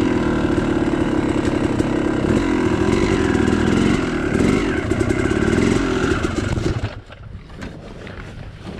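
Yamaha YZ two-stroke dirt bike engine running at a steady idle, a fast even popping beat, until it cuts off suddenly about seven seconds in, leaving a much quieter background.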